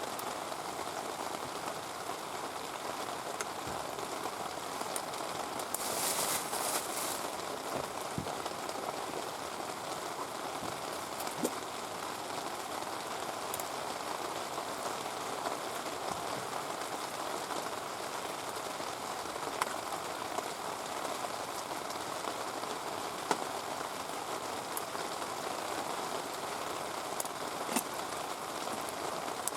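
Heavy rain falling steadily, with a few sharp crackles from a wood campfire and a brief louder hiss about six seconds in.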